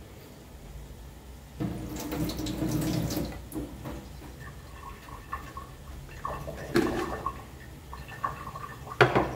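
Kitchen handling noises: a rush of noise for about two seconds, then scattered knocks and clicks as a plastic jar with a red lid is moved about. The loudest knock comes near the end.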